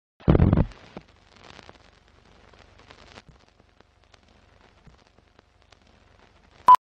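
Animated film-leader countdown intro: a loud, deep burst just after the start, then faint crackle and scattered clicks like old film running through a projector, ending in one short, high countdown beep.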